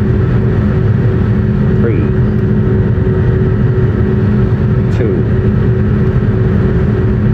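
Airliner turbofan engine running at taxi power, heard from inside the cabin near the wing: a steady loud hum with a constant tone over it.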